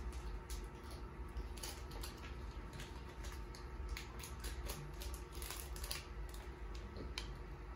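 Baseball cards being flipped through by hand while foil card-pack wrappers are torn and handled: short, crisp rustles and clicks at irregular intervals.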